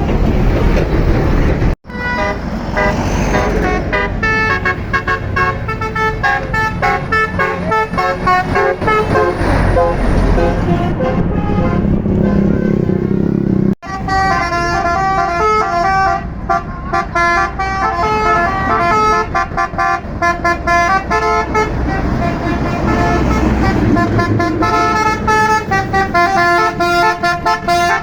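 A tour bus's Basuri multi-note 'telolet' air horn playing a tune, note by note in quick steps, with the bus engine running underneath. It breaks off sharply twice, about two seconds in and again near the middle, then carries on.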